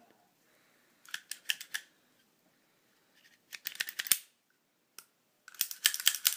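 Sharp metallic clicks of a Beholla .32 pistol's action and safety being worked by hand. They come in short bursts, about a second in and around four seconds in, and most densely near the end.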